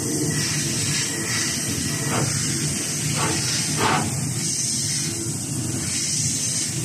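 A six-axis CNC deburring machine at work, its spindle running a deburring tool around a bore in an aluminium casting: a steady hiss over a low hum, with a few short louder noises about two, three and four seconds in.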